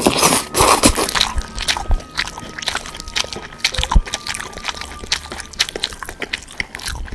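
Close-up crunching and chewing eating sounds, loud over the first second or so, then thinning into a run of quieter, irregular crackles and clicks.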